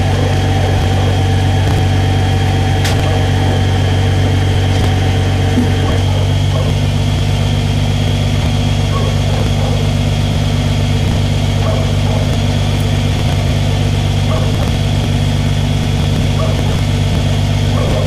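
Engine idling steadily with an even low hum.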